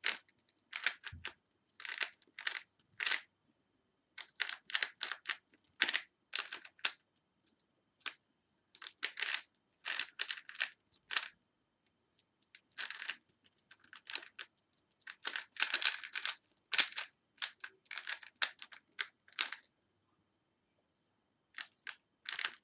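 A 3x3 Rubik's cube being turned rapidly by hand during a timed solve: quick runs of clicking layer turns, broken by a few short pauses.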